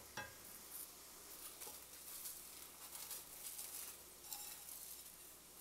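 Dry uncooked orzo pattering faintly as it is poured from a metal measuring cup into a skillet, over a faint sizzle of onion and garlic sautéing in butter and oil. A light knock sounds just after the start.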